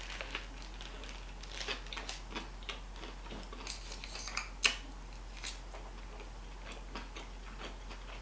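Close-miked chewing of a cheeseburger: irregular soft clicks and smacks of the mouth, with one sharper click a little past halfway.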